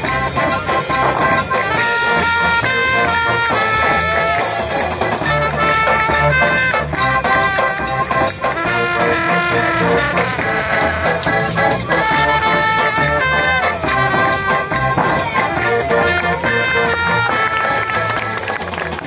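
Live band music: a trumpet playing the tune over accordion, double bass and a drum kit, running steadily.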